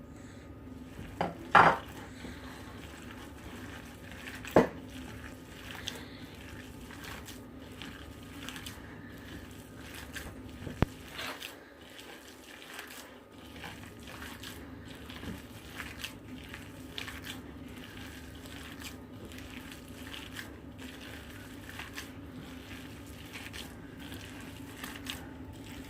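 Hands kneading and squeezing raw chicken mince mixed with potato, onion and gram flour in a bowl: a steady run of soft squelches and small clicks. Three sharper knocks against the bowl stand out, twice in the first five seconds and once about eleven seconds in.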